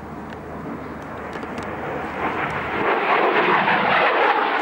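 De Havilland Venom jet fighter flying a display pass, the rushing noise of its single Ghost turbojet swelling steadily louder from about two seconds in as it comes closer.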